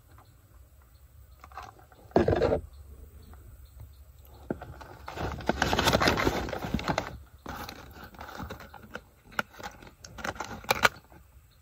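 Brown paper takeout bag rustling as hands rummage inside it, loudest in a stretch of a couple of seconds near the middle, followed by a few sharp clicks and taps as a cardboard burger clamshell box is lifted out and handled.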